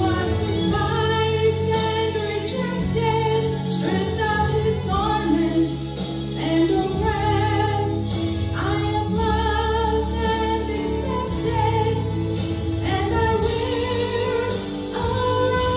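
A woman singing a slow Christian song solo into a microphone, with sustained instrumental accompaniment beneath her voice.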